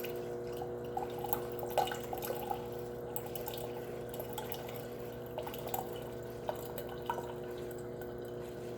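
Refrigerator water dispenser running water into a glass, with small splashes and drips over a steady hum; water being flushed through a newly installed fridge filter.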